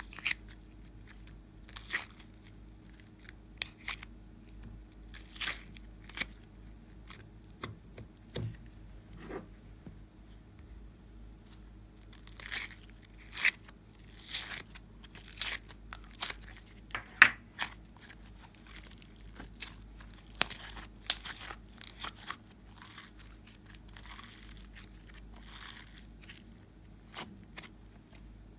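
Slime handled by hand, peeled out of a plastic container and pressed onto a slab of slime: irregular sticky crackles and pops, thickest in the middle stretch.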